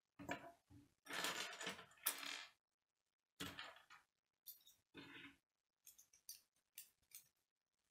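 Plastic K'nex pieces clicking and clattering as they are handled, snapped together and set down on a wooden table: a busy run of clatter in the first few seconds, then a few scattered faint clicks.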